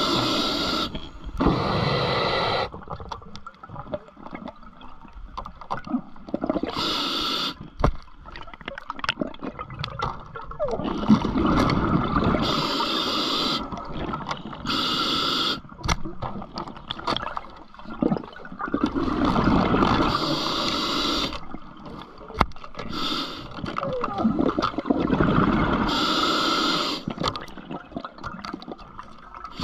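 Scuba diver breathing through a regulator underwater: short hissing inhalations alternate with longer bubbling exhalations, repeating every few seconds.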